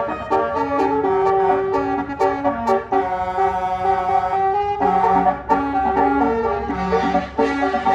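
A melody in quickly changing pitched notes, some held for over a second, with short sharp notes in between; it goes on without a break.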